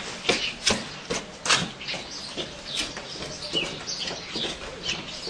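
Footsteps on wet cobblestones, two to three steps a second, loud at first and fading after about two seconds as the walker moves off, with small birds chirping faintly.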